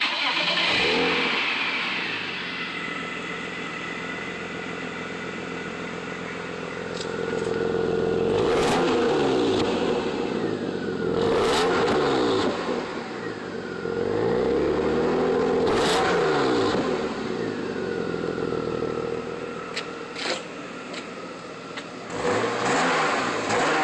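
Stock exhaust of a BMW E36 M3's S52 straight-six, recorded at the twin tailpipes: the engine comes in suddenly at the start and settles to a steady idle, then is revved several times, each rev rising and dropping back to idle, the longest held for about two seconds.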